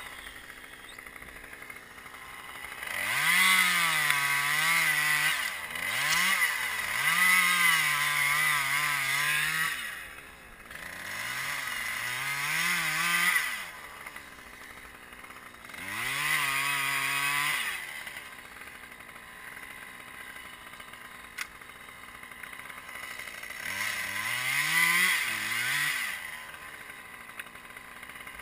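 Husqvarna two-stroke chainsaw revving up in about five bursts of a few seconds each. The pitch climbs quickly at the start of each burst, and the saw falls back to a quieter idle in between.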